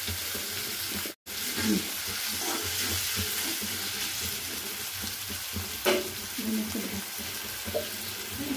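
Onions, tomatoes, green chillies and curry leaves sizzling in hot oil in a metal kadai, with a spatula stirring and knocking against the pan a few times. The sound cuts out completely for a moment about a second in.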